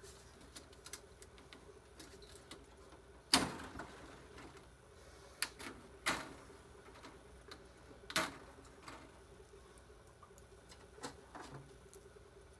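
Small clicks and knocks of hand tools and metal parts being handled while a server is taken apart, with four louder knocks, the loudest about three seconds in. A faint steady hum runs underneath.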